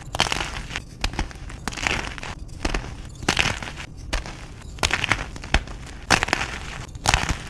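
Blocks of reformed gym chalk being crushed and crumbled: repeated dry crunches and crackles, a burst every half second to a second, with sharp snaps among them.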